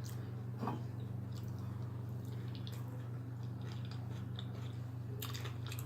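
A person chewing food close to the microphone, with small wet mouth clicks and a few brief crunchy bites, the largest near the end. A steady low hum runs underneath.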